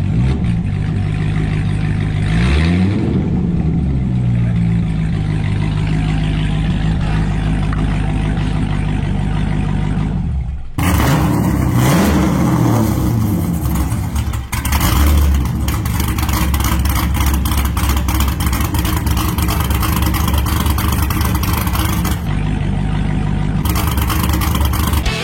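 Corvette V8 engine running loud and being revved, its pitch sweeping up and back down several times between stretches of steady running.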